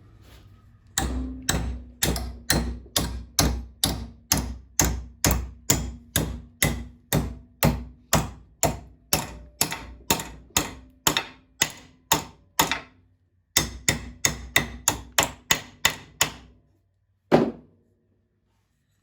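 Hammer blows on a metal bracket while working it loose: a steady run of sharp strikes, about two to three a second, with a brief pause past the middle and one last lone blow near the end.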